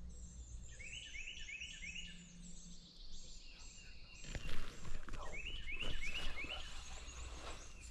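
Songbirds singing: two runs of quick repeated chirped notes, with higher notes over them. A brief thump about four and a half seconds in.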